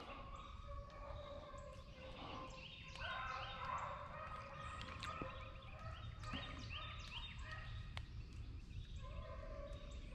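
Wild birds calling in swamp woodland: many short falling chirps repeating throughout, with a few lower, longer calls and a couple of sharp clicks.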